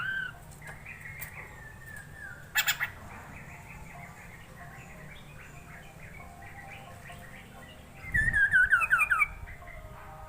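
Poksay mandarin (Chinese hwamei) singing a varied song of whistles and chattering phrases, with a few sharp clicks about two and a half seconds in. Near the end comes the loudest part: a quick run of about eight down-sliding whistled notes.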